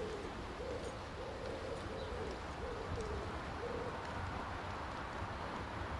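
A bird's short, low calls repeated about twice a second, stopping about four seconds in, over a steady low rumble.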